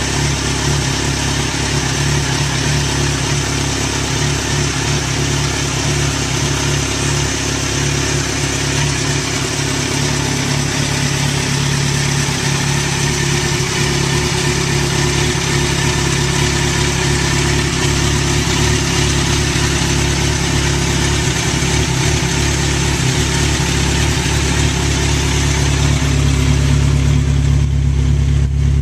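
Kawasaki Z1000SX's inline-four engine running steadily through a full aftermarket exhaust system. Near the end the sound turns deeper and a little louder.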